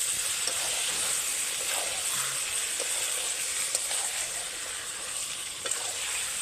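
Mayonnaise-marinated chicken frying in a spiced onion-tomato masala, sizzling steadily as it is stirred, with a few faint scrapes now and then.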